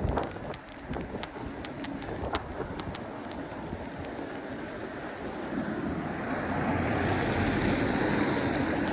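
Wind rushing over a chest-mounted camera's microphone while riding a bicycle on a wet road, with a few light clicks in the first seconds; the rush swells about six seconds in and stays loud.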